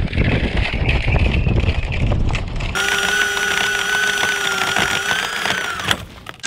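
A low rumble of wind and skis sliding over snow. About three seconds in it gives way to the steady, high whine of an electric dirt bike's rear-wheel hub motor spinning a rope winch, which sags slightly in pitch and stops about a second before the end.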